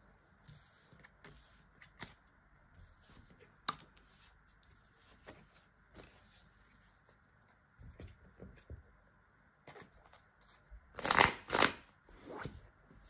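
Tarot cards being handled and shuffled: faint scattered flicks and rustles of cards, then two louder short card sounds close together near the end.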